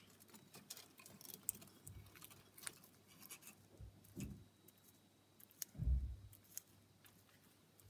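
Bearded dragon biting and crunching leafy greens: an irregular string of short, crisp clicks. Two dull low thumps come about 4 and 6 seconds in, the second the loudest.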